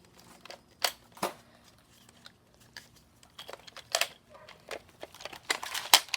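Sharp plastic clicks and clacks from a Nerf Elite Flipfury blaster being handled and worked: single clicks now and then, then a quick run of louder clacks near the end.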